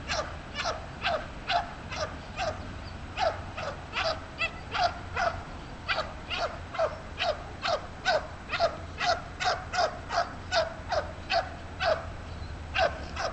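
A Malinois-type police-training dog barking steadily at a decoy in a bite suit: short sharp barks, about two a second, each dropping slightly in pitch.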